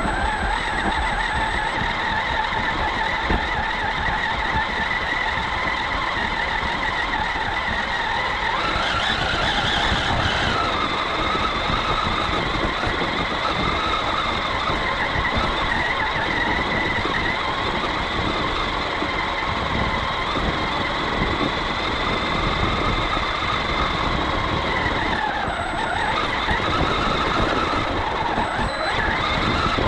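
Traxxas WideMaxx 1/10 brushless RC monster truck driving, its electric motor whining steadily. The pitch shifts up and down about a third of the way in and again near the end as the throttle changes.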